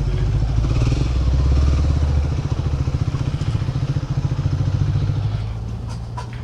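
Triumph Speed 400's single-cylinder engine running at low speed. Its pitch rises briefly about four seconds in, then it eases off and gets quieter near the end.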